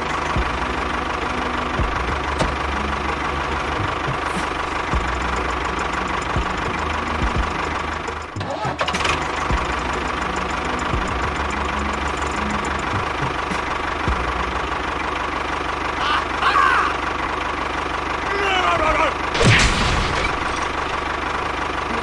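A tractor engine running steadily, with a short break about eight seconds in. Near the end there are a few short, squeaky gliding chirps.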